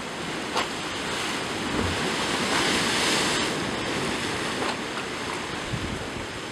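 Sea surf washing over and around breakwater rocks: a steady rush of foaming water that swells to its loudest about halfway through and then eases back.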